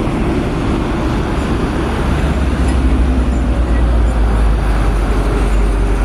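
Road traffic passing on a city street, a steady low rumble of engines and tyres that grows louder over the last few seconds as a bus draws near.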